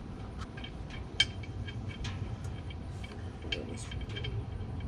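Light scattered metallic clicks and ticks, with one sharper click about a second in: an oil drain plug being fiddled against the oil pan of an Onan RV QG 4000 generator, not yet catching its thread.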